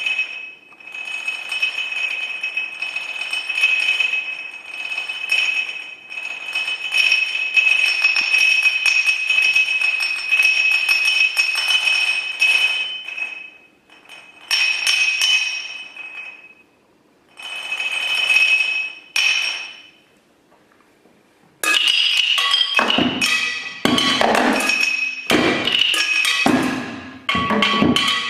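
Solo percussion on small instruments: a high, ringing tone sustained by a rapid roll, breaking off and restarting in shorter stretches. After a brief silence, about three-quarters of the way in, a dense, fast flurry of separate strikes across several instruments, some of them lower and duller.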